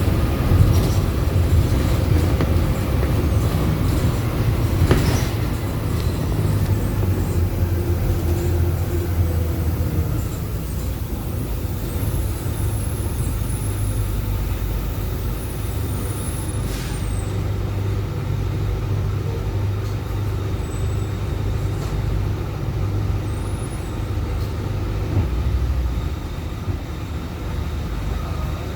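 Marcopolo Sênior Midi bus on an Agrale MA 15.0 chassis under way: a steady low engine drone with the hum of a differential that drones very loudly. There is a sharp knock about five seconds in, and the drone eases a little around ten seconds.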